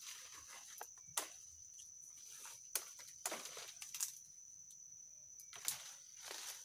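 Dry plant stems snapping and leaves rustling as they are broken off by hand, with several sharp cracks a second or so apart. A steady high-pitched insect drone runs underneath.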